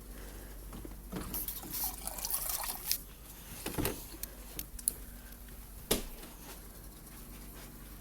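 Water being poured into a measuring cup for about two seconds, followed by a couple of short knocks.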